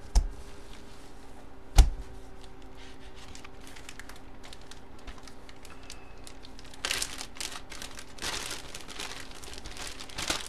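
Two sharp knocks in the first two seconds, then a clear plastic bag crinkling as it is handled, in a few short bursts.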